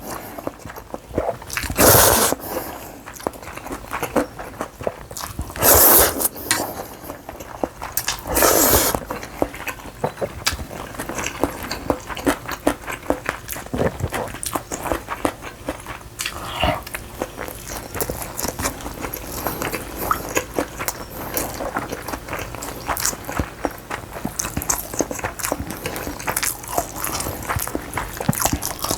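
Noodles slurped in three loud drawn-in bursts within the first nine seconds, then steady wet chewing with many small clicks.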